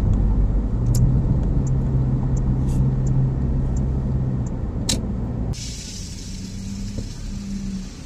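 Car driving along, heard from inside the cabin: a steady low road and engine rumble. About five and a half seconds in, the sound changes abruptly and drops in level.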